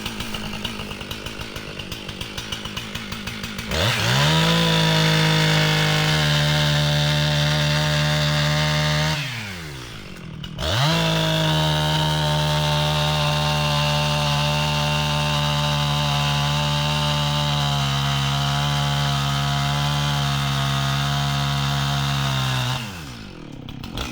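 Husqvarna 262XP two-stroke chainsaw idling, then run up to full throttle and cutting into a tree for about five seconds, dropping back to idle for a moment, then cutting again for about twelve seconds before easing back to idle. The two cuts are the notch cuts that come before the back cut when felling a tree.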